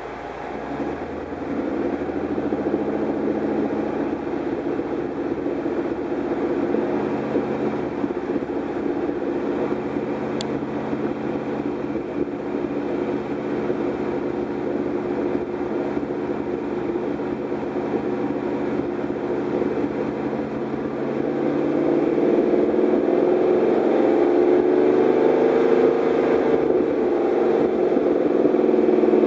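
An engine running with a misfire. It runs steadily, then picks up speed and gets louder about two-thirds of the way through.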